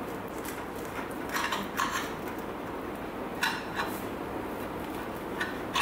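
Table knife cutting an open sandwich on crusty bread, scraping and clinking against the plate in several short strokes.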